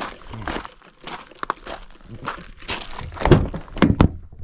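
A run of irregular knocks and clicks, the loudest two about three and four seconds in.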